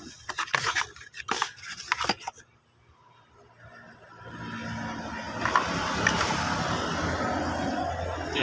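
A cardboard parts box being handled and opened, giving several quick scrapes and knocks. From about four seconds a steady engine-like rumble with a hiss fades in and holds.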